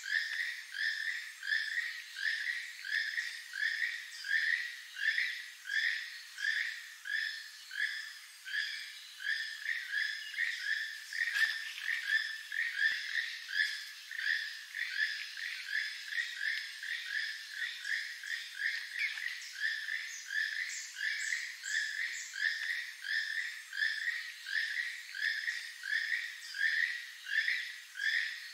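Keel-billed toucan calling: a frog-like croak repeated steadily at about two to three notes a second.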